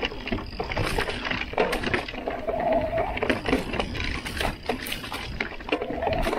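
Santa Cruz Heckler mountain bike rolling over rock and dirt singletrack: tyres crunching on the rough ground, with the chain and frame rattling and many sharp clicks and knocks as it bounces over rocks and roots.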